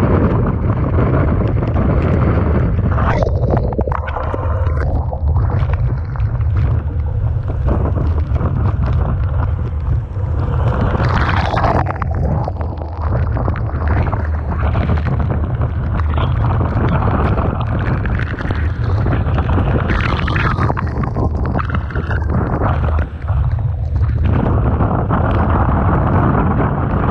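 Typhoon-force wind buffeting the microphone with a constant deep rumble, over the rushing noise of a rough sea, with a couple of brief louder surges of wave and spray.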